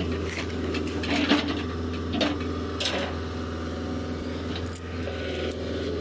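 An engine running steadily, a constant low drone, with scattered sharp clicks and knocks from tools and parts being handled.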